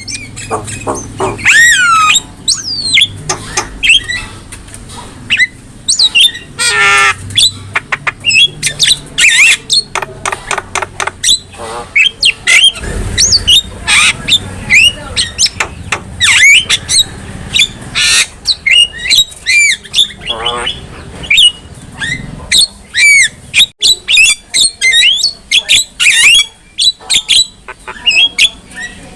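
Javan myna singing a busy, almost unbroken chatter of short whistles that slide up and down, mixed with harsh squawks and rasping notes.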